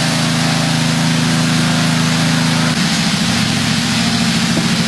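An engine running steadily at a low, even note; about three seconds in its sound turns rougher, with a fast pulsing.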